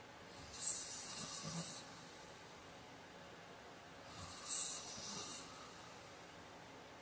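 A sleeping man snoring: two breathy snores, about three and a half seconds apart.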